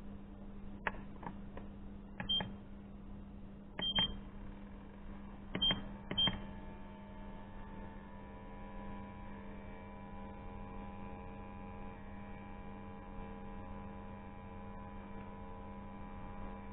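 Biaozhun QD-20 watch tester beeping four times, short and high, as its buttons are pressed to switch it on and select the demagnetising mode. About six seconds in, a steady electrical hum of several tones starts and holds as the demagnetiser runs.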